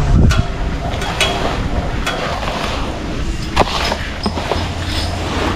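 Scattered knocks and clatter, the sharpest about three and a half seconds in, over a low steady hum.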